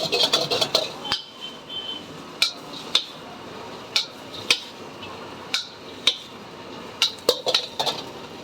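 Kitchen utensil knocking and clinking against pots or dishes: about a dozen sharp, separate clinks spaced roughly half a second to a second apart. A loud continuous noise fills the first second and cuts off abruptly.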